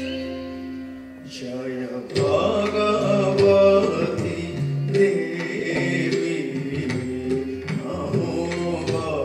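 Odissi classical dance music: a singing voice over plucked strings and drum strokes. The music dips about a second in and comes back louder about two seconds in.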